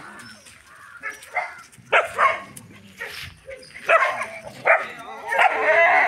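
Several street dogs barking in short, repeated barks that come thicker and louder near the end.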